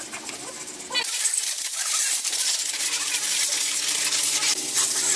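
Water starts running about a second in, a loud, steady hiss.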